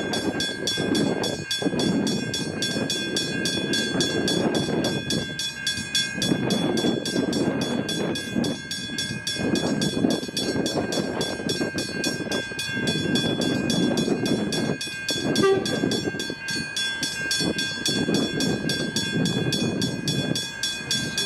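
A train moving off through the level crossing, its rumble swelling and dipping, while a level-crossing bell rings without pause on one steady high pitch. A brief tone sounds about fifteen seconds in.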